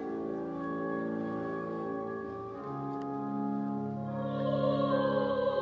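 Church pipe organ playing sustained chords. About halfway through the chord changes and the bass moves lower. Near the end the sound grows louder and brighter as higher notes come in.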